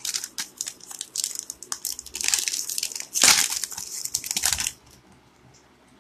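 Foil wrapper of a Magic: The Gathering booster pack being torn open and crinkled by hand: dense crackling for almost five seconds, loudest about three seconds in, then it stops.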